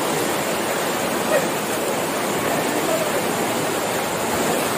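Fast, rain-swollen mountain stream rushing through a narrow rock gorge: a steady, even rush of churning whitewater.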